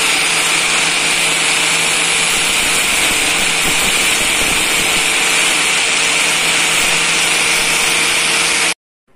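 Angle grinder running with a cutting disc, slicing through the metal canister of a diesel fuel filter: a loud, steady whine with harsh hiss that holds even throughout and cuts off abruptly shortly before the end.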